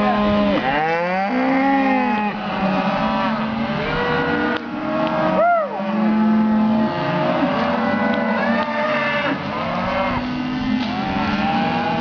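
A herd of cattle mooing over one another, many calls overlapping without a break, with one higher-pitched call rising and falling about halfway through.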